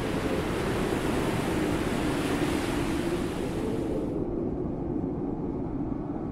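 Wind and choppy lake water lapping, a steady rushing hiss over a low rumble. The hiss cuts off about four seconds in, leaving only the low rumble.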